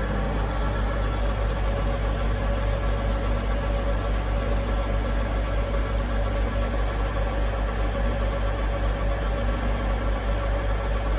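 EST Ticino ET 520 universal turning lathe running at a steady speed, its motor and headstock gearing giving a steady hum with a constant tone over it.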